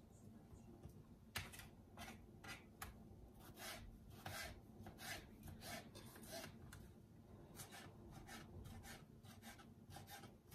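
Kitchen knife chopping cucumber on a plastic cutting board: faint, irregular knocks of the blade, about two a second.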